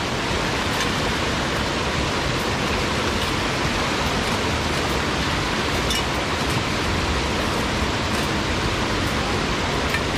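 Shallow river running over rocks: a steady hiss of flowing water, with a few faint knocks.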